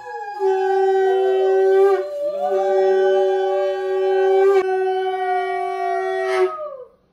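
Conch shell (shankha) blown in about three long, steady blasts in a row, each breaking off with a drop in pitch, the last one falling away and stopping near the end. It is sounded as the auspicious call of a Bengali blessing ritual.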